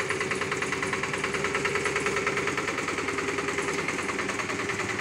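Engine of a walk-behind baby roller (small vibratory road roller) running steadily with a fast, even chugging beat.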